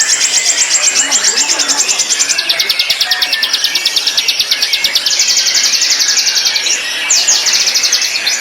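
White-rumped shama singing long, rapid trills of about a dozen high notes a second. The trill drops lower about two and a half seconds in, climbs back about five seconds in, and breaks off briefly before a few downward-sweeping notes.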